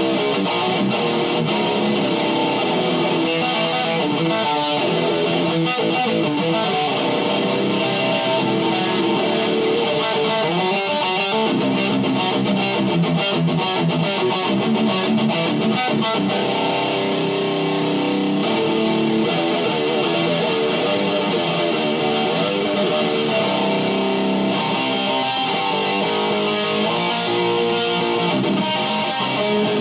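Black single-cutaway electric guitar playing extreme metal riffs without a break, the notes shifting constantly at an even loudness.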